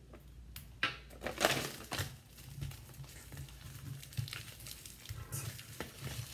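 Plastic packaging around a plaster dig brick crinkling and rustling as it is handled and pulled open, with a few sharp clicks.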